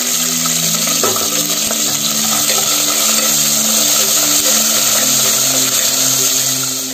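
Green chillies, curry leaves and ginger sizzling in hot ghee with roasting cashews, stirred with a wooden spatula, a loud steady hiss.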